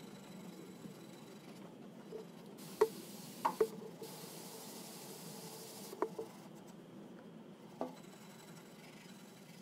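Water spraying from a garden hose spray nozzle in two bursts of about a second and a half each, with a few sharp knocks against metal, the first one the loudest.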